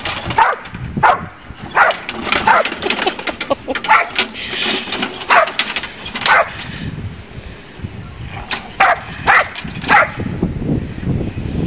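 Pit bull barking repeatedly in short, sharp barks at irregular spacing while it goes at a lawn mower that is not running. The barks stop about ten seconds in.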